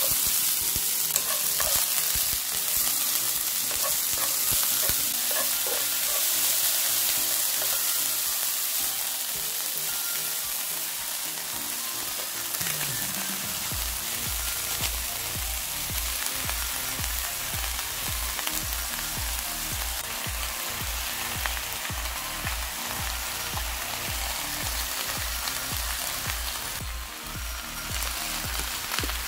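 Chopped onion sizzling in hot oil in a frying pan, starting suddenly as it goes in. Later spinach leaves join it in the pan and the frying goes on a little quieter.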